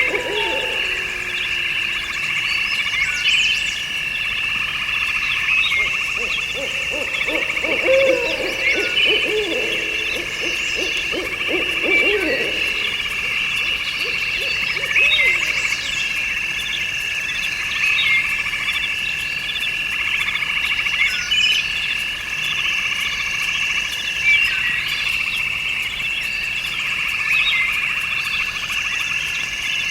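Outdoor chorus of insects and frogs: a steady high trill held at two pitches, with short bird chirps scattered over it. About seven seconds in, a run of low repeated calls joins for several seconds.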